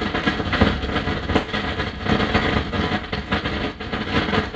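Amplified noise of an Ortofon 2M Red stylus riding a spinning surface that carries no music, heard during an anti-skating test. It is a loud, continuous rumbling scrape full of crackles and small pops.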